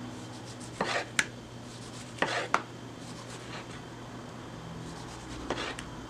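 A knife slicing a tomato on a bamboo cutting board: three slicing strokes, each a short rasp, the first two ending in a sharp tap of the blade on the board.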